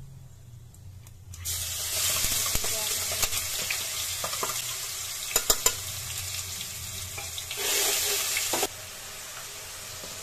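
Chopped onion hitting hot oil in a nonstick frying pan and sizzling loudly and steadily from about a second and a half in, while a steel spoon stirs it, with a few sharp clicks of the spoon against the pan midway. The sizzle drops off abruptly near the end.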